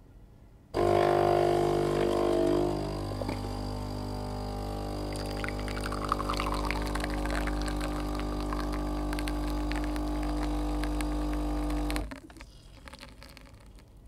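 Built-in ceramic grinder of a Philips 4300 Series (EP4346) bean-to-cup espresso machine grinding coffee beans: a motor drone with a steady hum that starts abruptly about a second in, loudest for the first couple of seconds, with crackling from about halfway through, and cuts off suddenly near the end.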